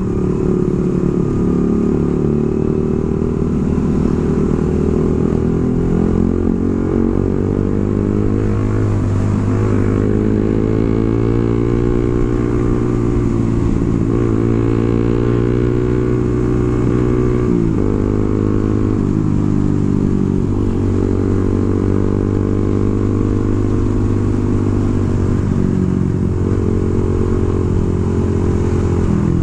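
Suzuki GSX-R150's single-cylinder engine running under way, its pitch climbing slowly and then dropping at several gear changes.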